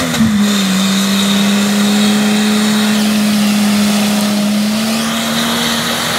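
Six-cylinder off-road 4x4 engine held at high revs under load as it climbs a muddy slope, a loud steady engine note that creeps a little higher about five seconds in.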